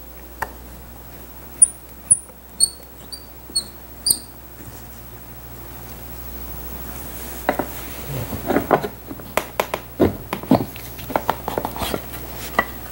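Hand tools working on the wooden frame of an old upholstered armchair. In the first few seconds there are a few sharp clicks and short high squeaks. From about halfway on comes a run of irregular knocks and clicks as tacks and finish nails are worked loose from the arm panel.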